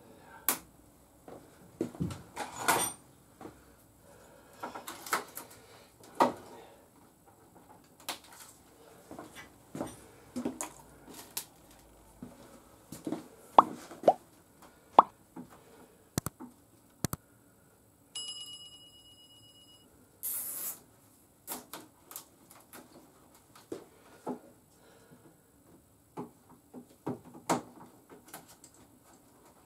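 Scattered clicks, taps and knocks of parts and tools being handled during motorcycle wiring work, spaced irregularly. About eighteen seconds in a steady high tone sounds for about two seconds, followed by a short hiss.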